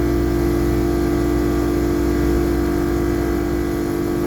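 An old Temperzone air-conditioning unit running with a steady, loud hum and drone. It is quite noisy, mostly from its worn condenser fan, which is due for replacement.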